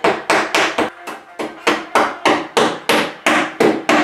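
Hammer blows, about three or four a second in a steady rhythm, each ringing briefly. The hammer is working along the parting edge of a cured composite mold to knock it loose and open it.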